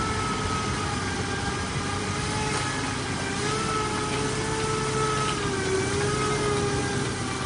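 Heavy truck's diesel engine running steadily as the truck works through river water and mud, its drone wavering slightly in pitch.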